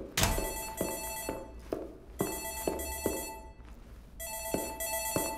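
Corded landline desk telephone ringing: three rings of about a second each, separated by short pauses.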